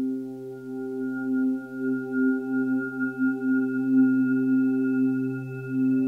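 Ambient music: long, sustained tones like a singing bowl, layered and slowly wavering in loudness.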